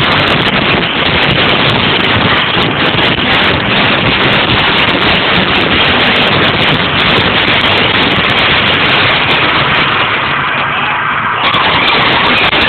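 Loud, heavily overloaded sound from a live venue: a dense, steady wash of noise with no clear tune or voice in it, dipping briefly about eleven seconds in.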